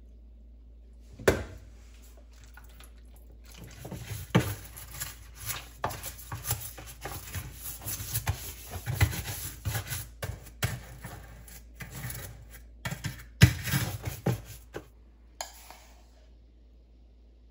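Hands handling dishwasher parts: irregular knocks and clatter mixed with rubbing and scraping, with a sharp knock about a second in and another near the end.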